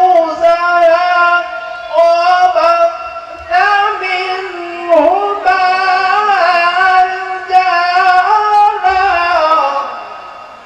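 A man's voice reciting the Quran in the melodic tilawah style into a microphone. The long phrases are held on sustained notes with ornamented turns in pitch, and the last phrase dies away near the end.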